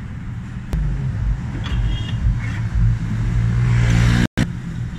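Diesel engine running, jumping louder under a second in and building up as it is revved over the next few seconds. Just after four seconds a brief, abrupt dropout cuts the sound, and it comes back lower.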